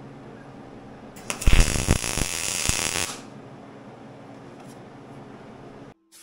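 Electric welding arc on steel: one short bead, crackling and hissing for about a second and a half, over a steady low hum.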